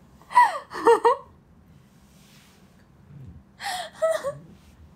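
A young woman's embarrassed squeals of laughter: two short high cries falling in pitch in the first second, then after a pause a few more short cries near the end.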